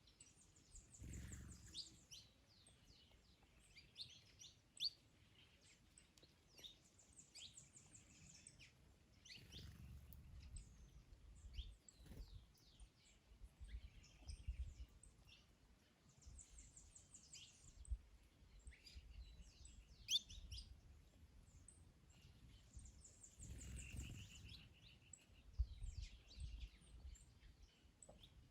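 Faint birdsong: several small birds chirping and calling, with a fast high trill that comes back every seven or eight seconds, over low gusts of wind.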